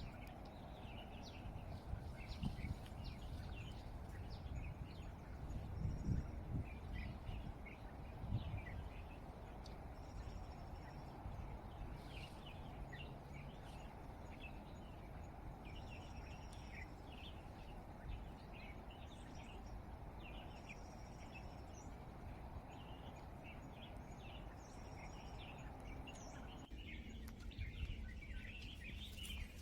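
Small birds chirping over and over in short high calls, with a few short thin whistles, over a steady low rumble of wind and handling noise on the microphone; a few dull knocks come in the first third, and the low rumble drops away abruptly near the end.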